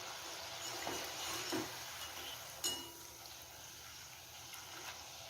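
Ribbon pakoda deep-frying in hot oil with a faint steady sizzle, and a few light clinks of a metal utensil against the pan as the pieces are flipped; the sharpest clink, with a short ring, comes about two and a half seconds in.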